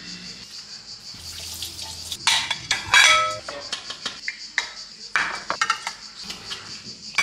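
White ceramic bowls clattering and clinking as they are set down on a kitchen counter, the loudest a ringing clatter about three seconds in. Later come a few sharp knife clicks against a bowl as cucumber is cut.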